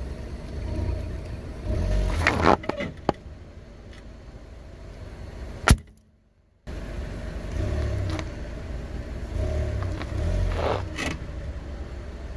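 Car tyre rolling slowly over inflated plastic toy balls on asphalt, with the car's engine rumbling low. The balls crackle under the tyre, and one bursts with a single sharp pop a little before halfway; more crackling comes near the end as the tyre presses down on another ball.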